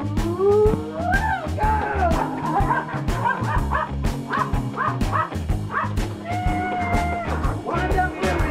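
A dog vocalising over upbeat background music: a rising whine, then a run of short yips about two a second.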